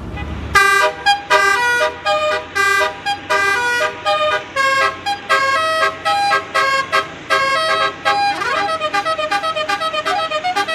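Basuri 'telolet' multi-tone air horn on a bus, playing a tune of short blasts that step between different pitches. About eight seconds in it slides up and switches to quicker, shorter notes, about four a second.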